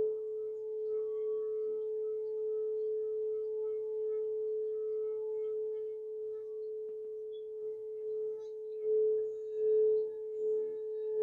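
A singing bowl sounds one sustained, steady tone with a slow waver in loudness, swelling louder about nine seconds in.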